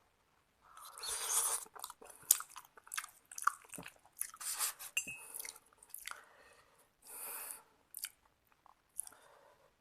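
Close-miked mouth sounds of a person eating seblak: irregular chewing with sharp wet clicks, and longer noisy bursts about a second in and again near seven seconds.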